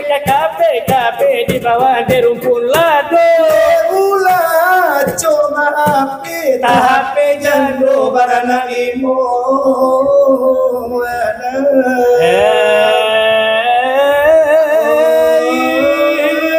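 Salawat dulang: a man's voice singing a melismatic Minangkabau devotional chant, with brass dulang trays struck in the first few seconds. After that the voice draws out long, ornamented held notes.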